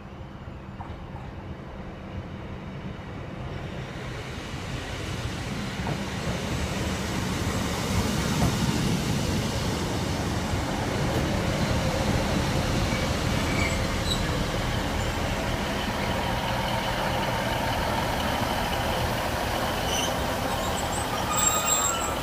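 Class 156 Super Sprinter diesel multiple unit arriving at a platform, its engine and wheel rumble growing louder over the first several seconds as it approaches, then running steadily past alongside while slowing, with a thin high squeal near the end.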